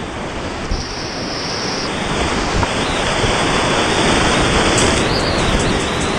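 Whitewater rapids on a river in high flow, heard from the kayak in the middle of the rapid: a steady rush of churning water that grows louder over the first few seconds.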